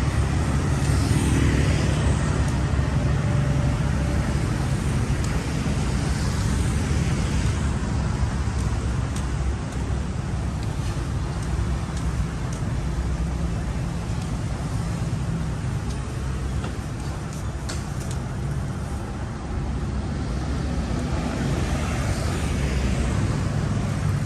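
Road traffic on a busy street: a steady low rumble, with vehicles swelling past about a second in, again a few seconds later, and near the end.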